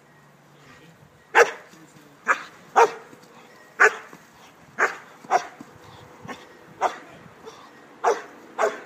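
German Shepherd barking about nine times in sharp single barks at uneven intervals, the first the loudest, while it faces the helper in protection training.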